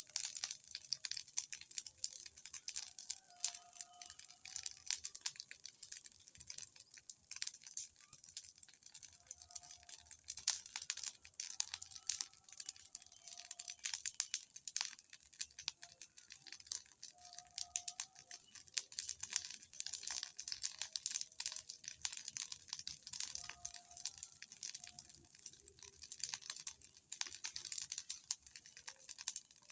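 Large bonfire crackling, a dense, irregular stream of sharp snaps and pops.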